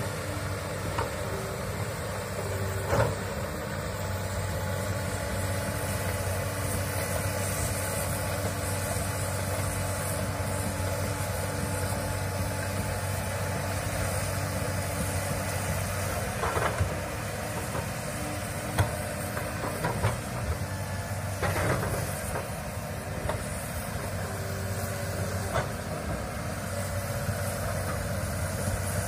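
Komatsu hydraulic excavator's diesel engine running steadily, broken by a few short sharp knocks.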